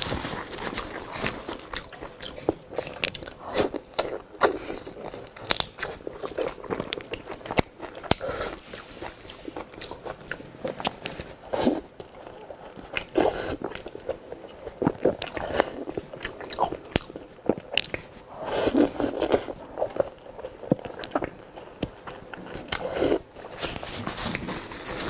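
A person eating close to the microphone: bites, crunching and wet chewing, with many short sharp clicks throughout.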